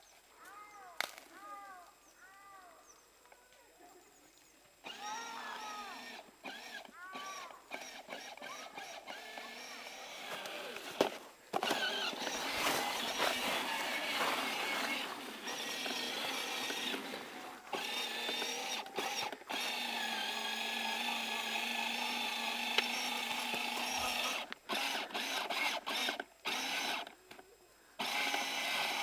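Electric motor and gearbox of a battery-powered children's ride-on quad whirring as it drives through slushy snow, coming on after a few seconds, louder from about twelve seconds in, then stopping and starting several times near the end. Before the motor starts there are a few seconds of high, repeated chirps.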